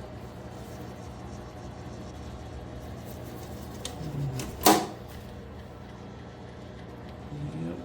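Steady hum of a GE commercial dryer left running, with a single sharp metallic clack a little before five seconds in.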